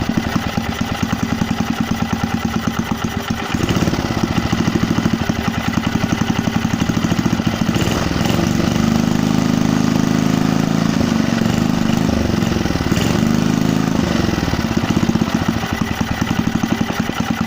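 Rebuilt Briggs & Stratton 3 hp single-cylinder four-stroke petrol engine running on its first start after the rebuild, firing in a rapid even rhythm. Its speed picks up about halfway through, holds for several seconds, then drops back to a slower run.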